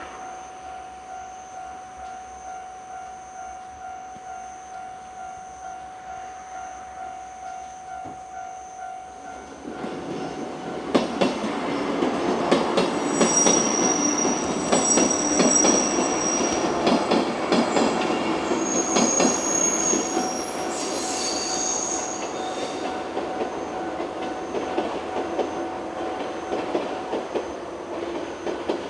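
A level-crossing warning bell rings in a steady repeating pattern. About ten seconds in, a 103 series electric train arrives and passes over the crossing, with quick clicks of wheels over rail joints and high squealing from the wheels. The train sound eases off near the end, with the bell still ringing.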